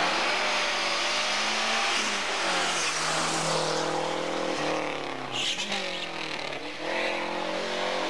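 A small hatchback's engine revving hard as the car accelerates through a slalom course. The pitch climbs and drops back sharply at each gear change, three times. A short burst of hiss and crackle comes about halfway through.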